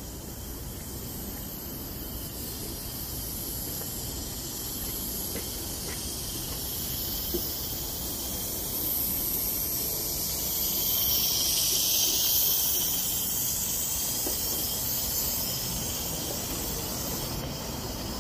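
Steady high hiss of a small coal-fired Accucraft Ragleth live-steam locomotive running, growing louder as it comes close about ten seconds in and easing off again.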